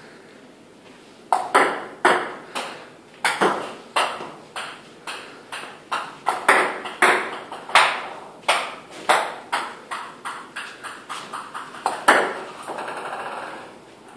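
Table tennis balls clicking off the paddle, the table and the floor during serve practice: a string of light sharp ticks starting about a second in, coming about two a second and at times bunching like a bouncing ball. A short stretch of noise comes near the end.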